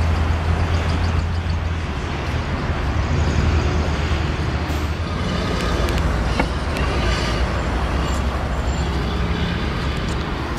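Steady road traffic hum with passing vehicle noise, with one sharp click about six seconds in.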